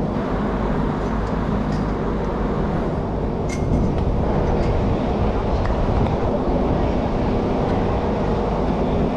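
A steady low rumble with a faint hum, like a large vehicle or machine running, and one sharp click about three and a half seconds in.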